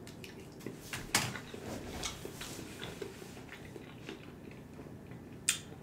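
A man chewing a mouthful of stir-fried noodles with soft wet mouth clicks, and a sharper smack near the end.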